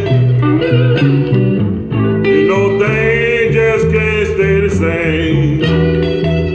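A song on a 45 rpm vinyl record playing on a 1951 RCA Victor J-2 record changer, heard through a Fisher CA-40 tube amplifier and an Electro-Voice Baronet speaker: guitar and singing over steady bass notes.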